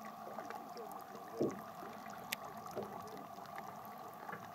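Boat ambience on calm water: faint sloshing with a steady hum, a dull knock about a second and a half in and a sharp click a second later.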